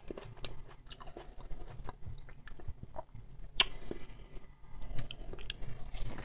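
A man chewing food close to the microphone: scattered soft mouth clicks and smacks, with one sharper click about three and a half seconds in.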